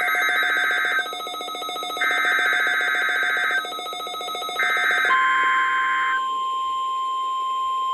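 NOAA Weather Radio weekly alarm test: three bursts of warbling digital SAME header tones, then a single steady 1050 Hz warning alarm tone that starts about five seconds in and holds for about three seconds.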